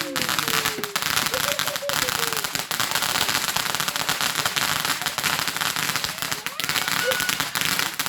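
Garden fireworks crackling steadily, a dense stream of rapid small pops and crackles.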